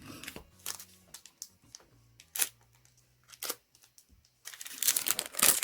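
Light clicks and slides of trading cards being handled, then, near the end, a louder burst of crinkling and tearing as a foil booster pack wrapper is ripped open.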